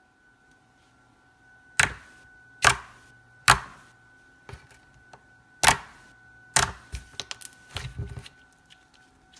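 Slime being played with by hand: five loud, sharp pops a second or so apart, then a quick run of smaller clicks and crackles near the end.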